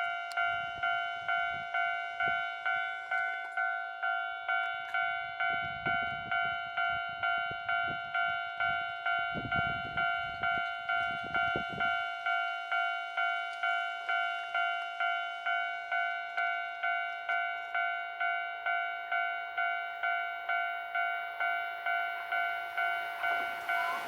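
Japanese railway level-crossing warning bell ringing steadily, about two electronic dings a second, signalling an approaching train. A low rumble rises and falls between about five and twelve seconds in.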